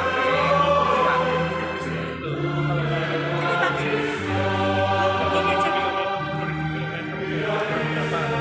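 Church choir singing a hymn in harmony, several voice parts together on long held chords that change every second or two.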